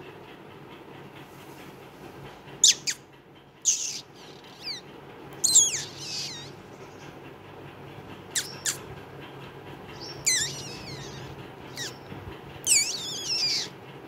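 Nestling bird's high, sharp cheeps, each falling quickly in pitch, coming singly and in short clusters of several.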